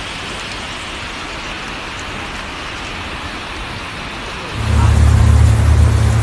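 Rushing floodwater and rain as a steady hiss. About four and a half seconds in, a much louder low rumble takes over.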